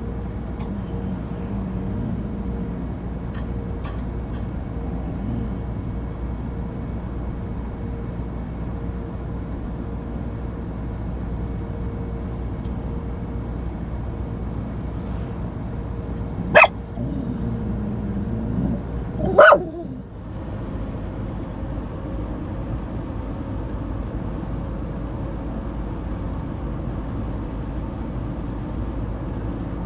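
Steady road and engine noise inside a moving Ford Transit van, with a dog barking twice, sharply, about two-thirds of the way through.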